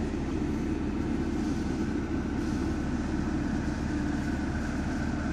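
BMW M4's twin-turbo inline-six idling warm: a steady low hum heard from inside the cabin.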